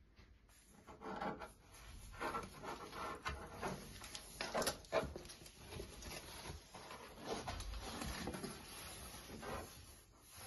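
Protective plastic film being handled and peeled off a flat-screen TV's screen by hand: irregular rustling and rubbing, starting about a second in.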